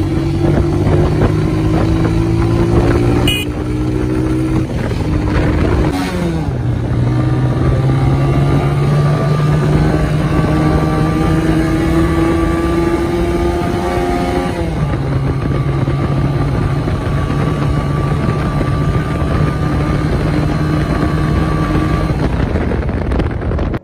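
Honda 125 motorcycle's single-cylinder four-stroke engine running under way. Its note climbs steadily as the bike gathers speed, dips sharply about six seconds in and again a little past halfway as it changes up a gear, then holds steady at cruising speed.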